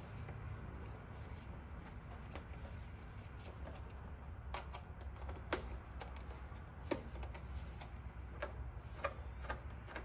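Scattered sharp clicks and taps of a hand tool and the plastic body panels of a motorcycle's tank-side fairing as its fasteners are worked, the loudest about halfway through and again near the end, over a faint low hum.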